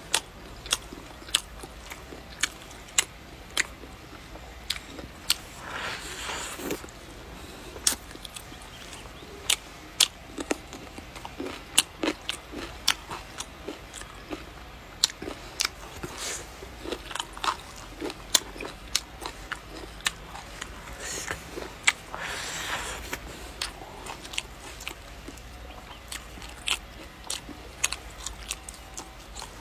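Close-up eating sounds: a person biting and chewing a meal of homemade sausage, cured pork and stir-fried stem lettuce, with many short crisp clicks and crunches.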